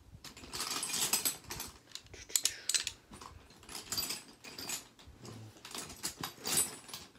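Metal hand tools, ratchets among them, clinking and rattling as they are dug out and handled, in irregular bursts of clatter.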